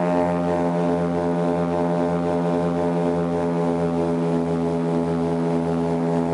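Propeller engine of a small twin-engine commuter plane droning steadily in cruise, heard from inside the cabin, with a slow, even throb underneath at about one and a half pulses a second.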